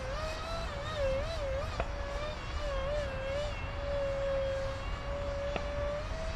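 Electric ducted fan whine of a radio-controlled SU-35 jet in flight, its pitch wavering up and down and then holding steady for a moment, with wind rumbling on the microphone.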